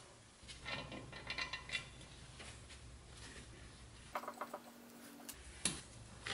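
Light clinks and knocks of the cast-iron base of a bench grinder being handled while rubber feet are fitted to it, with a short metallic ring a little after four seconds and a sharper knock near the end.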